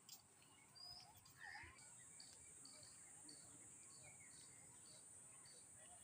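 Faint birdsong: a few short bird calls in the first second or so, then short chirps repeating about twice a second. A steady high-pitched drone joins about two seconds in.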